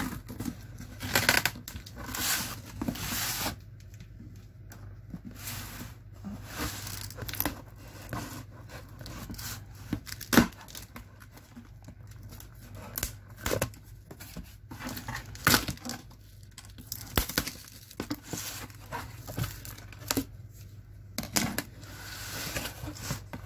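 Packing tape and cardboard tearing and rustling as a cardboard box is opened and handled. The sound comes in irregular bursts with scattered sharp rips and knocks, the loudest about ten seconds in.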